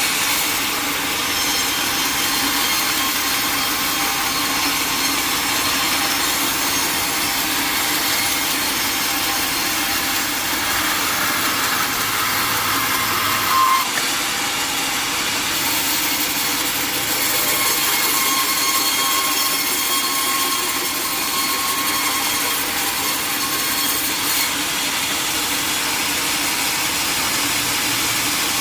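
Sawmill saw running and cutting through teak wood, a steady loud machine noise with a short louder burst about halfway through.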